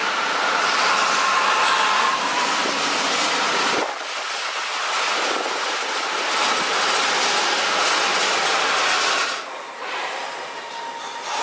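Sapporo subway train, a rubber-tyred metro car steered by a central guide rail, running with a steady rush of noise and a faint high whine. The sound changes abruptly about four seconds in and drops off about nine seconds in.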